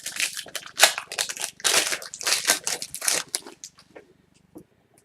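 Foil wrapper of a trading-card pack crinkling and crackling as it is handled and torn open for about three and a half seconds, then only faint rustles.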